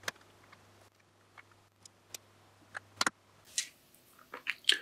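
LEGO bricks clicking and tapping as they are handled and pressed together: a few scattered plastic clicks, the sharpest near the start and a double click about three seconds in.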